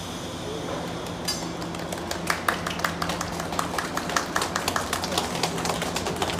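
Scattered hand-clapping from a small crowd, irregular sharp claps starting about a second in and growing denser, over a steady low hum.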